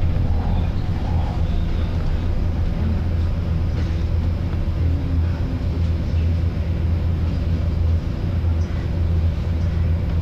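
Volvo B9TL double-decker bus's six-cylinder diesel engine idling with a steady low rumble.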